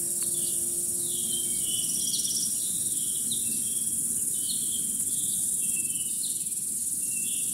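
Crickets in a summer meadow, a steady high-pitched shrill chorus, with short, lower chirps repeating about once a second.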